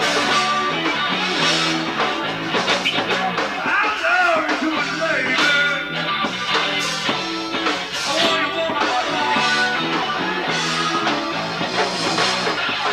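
Live rock band playing a song: guitar, bass guitar, drums and bongos.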